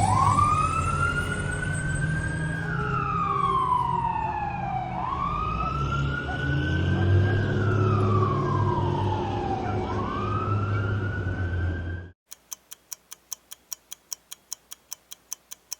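Fire truck siren wailing, its pitch slowly rising and falling about every five seconds, over a low engine rumble. It cuts off suddenly about three quarters of the way through, followed by a steady ticking of about four to five ticks a second.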